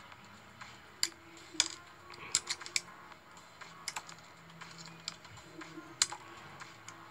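Utility-knife blade slicing into a bar of soap, with sharp, crisp cracks and crackles as pieces chip off. The loudest cracks come about a second and a half in and again near six seconds.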